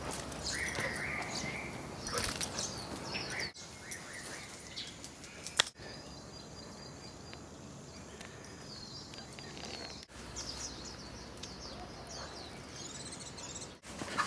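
Outdoor background with scattered bird chirps and short calls over a steady low hiss, plus one sharp click a little under six seconds in.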